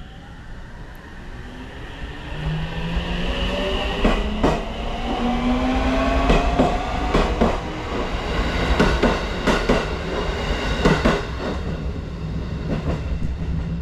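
A JR Central 313 series electric train pulling out of the station. Its motor whine rises in pitch as it picks up speed, and its wheels clack in pairs over the rail joints, growing louder about two seconds in.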